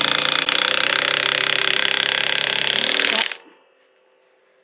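Craftsman V20 high torque cordless impact wrench hammering rapidly as it drives a 5-inch lag bolt into wood, stopping about three seconds in when the bolt is seated.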